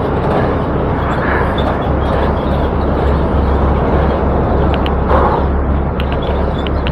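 Steady wind rumble and road noise on a bicycle-mounted action camera's microphone while riding, with a few light clicks in the second half.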